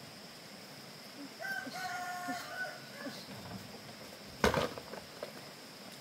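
A rooster crowing once, one drawn-out call of about a second and a half, followed about a second and a half later by a single sharp knock.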